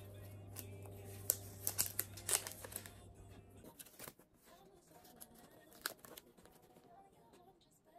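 Sticker sheets in clear plastic sleeves and paper sticker packets being handled and sorted on a desk: crinkly rustles and light taps, busiest in the first few seconds, with a few sharper ones later.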